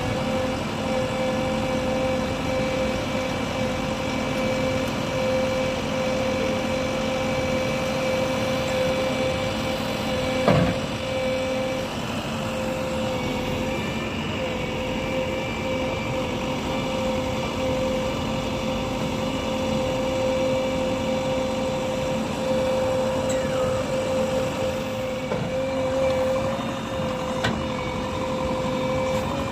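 JCB 3DX backhoe loader's diesel engine running steadily, with a constant tone over it and a single sharp knock about ten seconds in.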